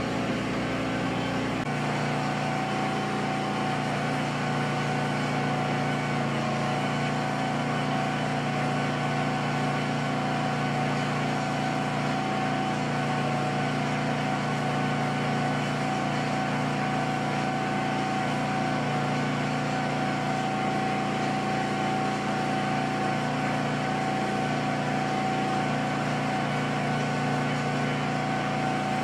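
A steady mechanical hum of a motor running, made of a few fixed tones. Its low end changes slightly just under two seconds in, then holds unchanged.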